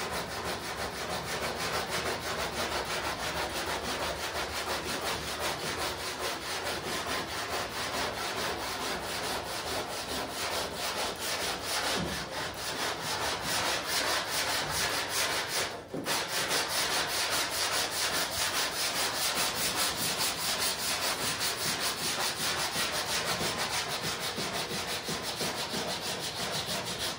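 Long sanding block with 80-grit paper rubbed by hand over a primed steel quarter panel in quick, even back-and-forth strokes, with a brief pause about 16 seconds in. The block sanding scuffs the primer to show up the high and low spots around a welded seam before filler goes on.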